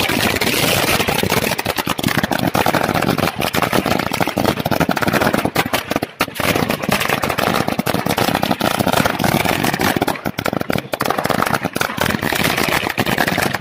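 A long string of firecrackers going off on the road: a continuous, rapid crackle of many small bangs, loosening into a few gaps near the end.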